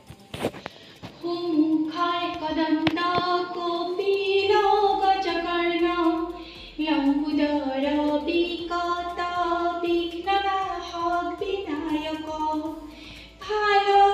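A high female voice singing a slow melody with long held, sliding notes. A few sharp clicks are heard near the start.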